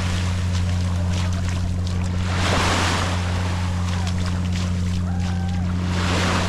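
Small waves washing up on the sand, one wash swelling about every three seconds, over a constant low hum.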